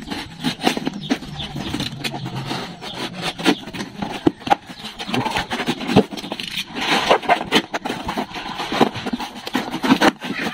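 Box cutter slicing through a taped cardboard shipping box, with irregular scraping, crackling and tearing as the cardboard is cut and pulled apart by hand.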